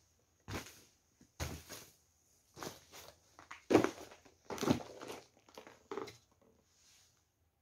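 Irregular footsteps on a hard floor, a dozen short steps at an uneven pace, the last one fainter near the end.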